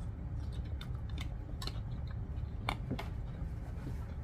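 A person chewing a mouthful of noodles, with a few short scattered mouth clicks and smacks over a low steady hum.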